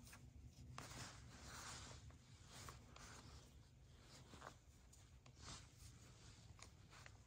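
Near silence, with faint scratchy rustles and a few light ticks.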